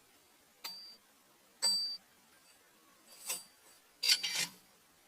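Four short metallic clinks, each with a brief high ring, about a second or so apart; the last is a quick double knock.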